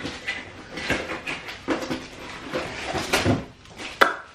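Rummaging in a cardboard box of packaging: irregular rustles, scrapes and knocks, with one sharp click about four seconds in.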